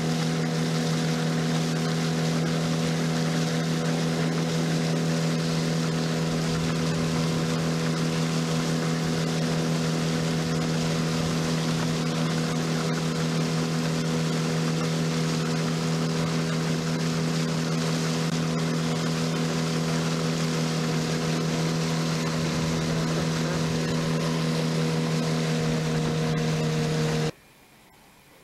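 Outboard motor of a small fishing boat running at a steady cruising speed: a constant hum with wind and water rush. It cuts off abruptly near the end, leaving only faint outdoor ambience.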